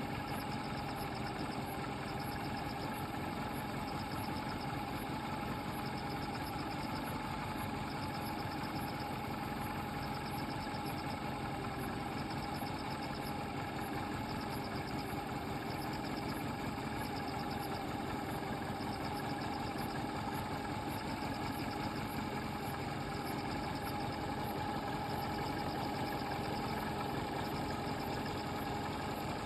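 A steady mechanical hum, even and unbroken, with a faint high pulsing that repeats about once a second; no thunderclaps are heard.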